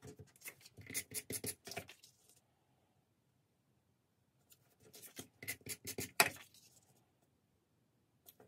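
Cardstock photo mats being handled and pressed down by hand onto a paper scrapbook layout: two spells of paper rustling, rubbing and light taps with a pause of about two seconds between them, and a sharp snap about six seconds in.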